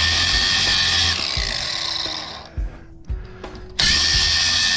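Angle grinder grinding off the metal tab that holds a PTAC motor's case together. It runs in two long passes with a short break of about a second between them.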